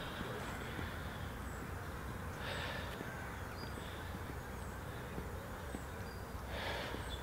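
Outdoor ambience: a steady low rumble, faint high chirps of small birds, and two short breathy huffs, one about a third of the way in and one near the end.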